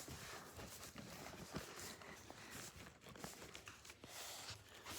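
Near silence in a small room, with a few faint scattered taps and rustles of someone moving about and handling things.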